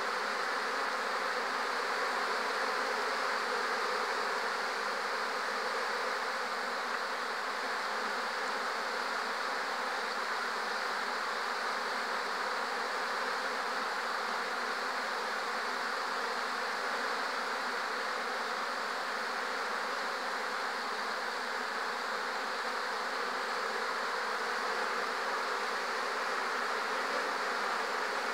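Steady, dense hum of a crowd of honey bees flying close around busy hive entrances: the sound of heavy foraging flight traffic, workers streaming in and out with pollen and nectar.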